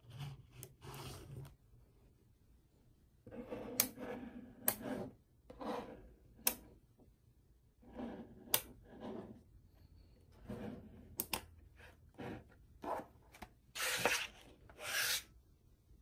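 Mini magnetic balls being handled: slabs and blocks of the small steel-bright balls sliding and grating across a surface in short bursts, with several sharp clicks as balls knock together.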